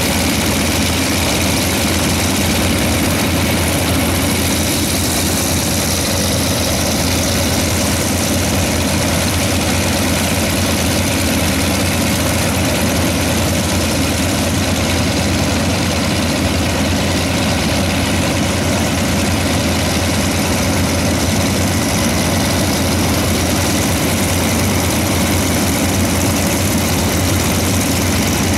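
Several piston aircraft engines idling together while warming up, among them the radial engines of Yakovlev trainers, with propellers turning: a steady, even drone that holds level throughout.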